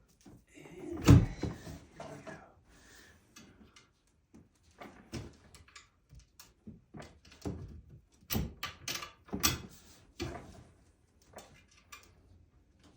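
Knocks, taps and clicks of chair frame parts, bars and screw hardware being handled and fitted together during flat-pack assembly: one loud knock about a second in, scattered taps after it, and a busier run of sharp clicks from about eight to ten seconds in.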